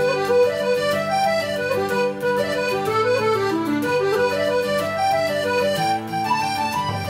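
Background music: a solo accordion playing a melody over held bass notes.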